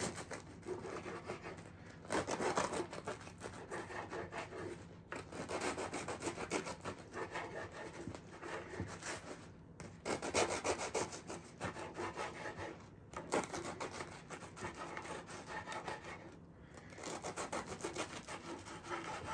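A kitchen knife sawing through a baguette on a wooden board, slice after slice. It makes a quick rasping of back-and-forth strokes in several bouts, with short pauses between cuts.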